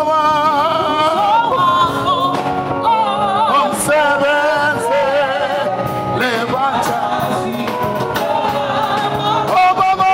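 A gospel worship song sung with instrumental backing, the held sung notes wavering with vibrato.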